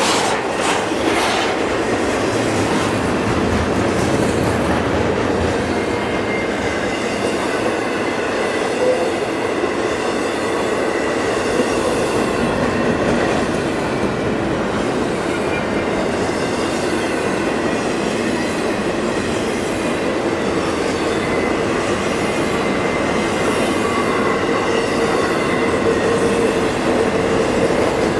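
CSX double-stack container freight cars rolling past close by: a steady, loud noise of steel wheels running on rail, with a thin high squeal from the wheels coming and going.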